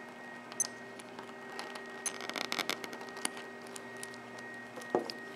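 Small clicks, scrapes and rubbing of fingers working a flexible aftermarket plastic watch case and band onto a G-Shock watch module. The rubbing is densest about two to three seconds in, and there is a sharper click or knock near the end, over a steady low hum.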